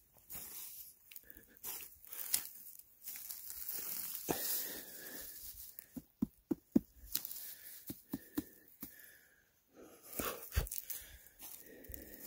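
Fingers tapping a spring king bolete cap, a quick run of five or six knocks about six seconds in, checking for the hollow sound that shows insects have eaten out the inside. Dry pine needles rustle and crunch around it as the mushroom is uncovered and handled.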